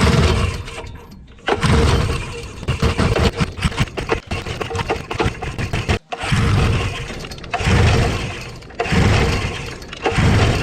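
Quicksilver ultralight's engine being pull-started again and again, about six yanks of the recoil starter, each a sudden burst of cranking that fades out without the engine catching.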